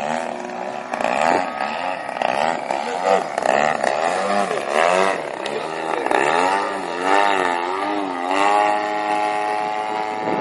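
Chip Hyde Vision 3D aerobatic RC plane's motor and propeller running in flight, the pitch rising and falling over and over as the throttle changes through 3D manoeuvres.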